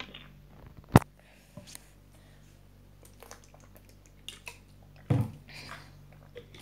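Someone drinking from a plastic water bottle: soft swallowing and mouth sounds, with a sharp click about a second in and a louder burst just after five seconds.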